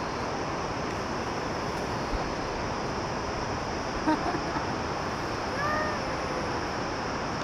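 Steady rushing outdoor background noise, with a few short faint calls about four seconds in and one brief curving call near six seconds.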